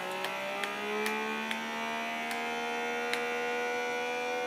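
Handheld cordless vacuum sealer's pump running while pressed on the valve of a zipper vacuum bag, drawing the air out. Its steady hum rises in pitch over the first second or so and then holds steady, with a few faint ticks.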